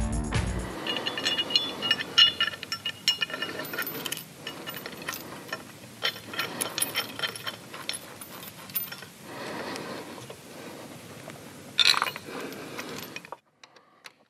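Hand tools on a Harley-Davidson Dyna's transmission case: metal clinks, clicks and ringing of wrench, sockets and bolts as the old bracket studs and bolt come out and the new exhaust bracket is bolted on. A louder clank about twelve seconds in, then the sound cuts off shortly before the end.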